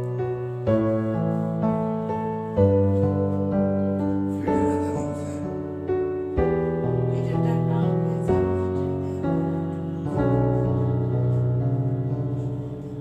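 Background music: piano playing slow, sustained chords that change about once a second.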